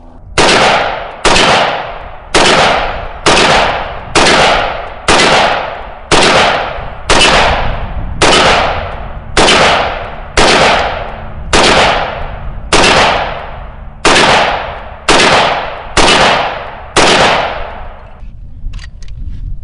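Huldra Mark IV piston-driven AR-15 carbine in 5.45×39 firing Russian military surplus ammunition: about nineteen single shots at a steady pace of roughly one a second, each trailing off briefly. The firing stops about two seconds before the end.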